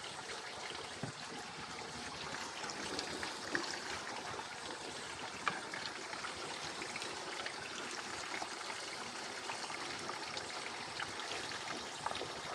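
Water running steadily, with a trickling, splashing sound and a few light clicks.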